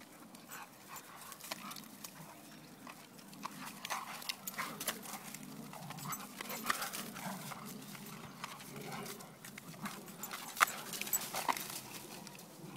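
A Rottweiler and a Rottweiler–English bull terrier cross play-fighting: dog noises with quick irregular scuffles and clicks, the sharpest click about two-thirds of the way through.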